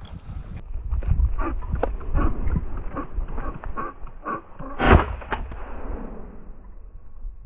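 A run of crunching steps and rustling through dry cover, then a single loud shotgun shot about five seconds in, its report fading off afterward: a pheasant being shot.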